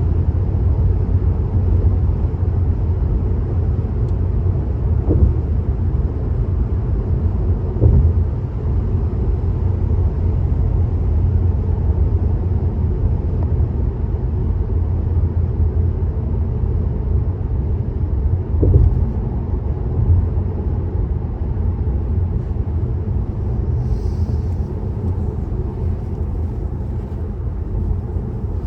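Car driving at motorway speed: a steady low rumble of tyres and road noise, with a few brief bumps as the wheels pass over joints or rough patches.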